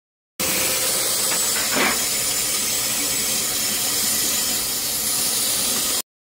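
Kitchen faucet running steadily into a stainless-steel sink basin full of standing dishwater and dishes, an even hiss of pouring water.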